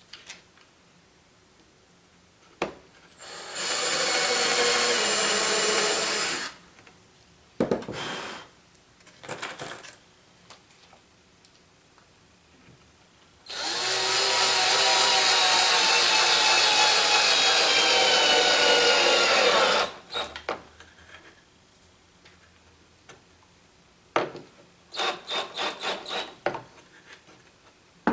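Ryobi cordless drill running into a pine support block, in two long runs, the second about six seconds long with its pitch falling slightly, then a string of quick short trigger bursts near the end.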